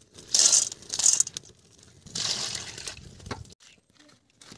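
Short bursts of clattering, clinking and hissing from food being stirred in a metal wok over a wood fire, each cut off abruptly.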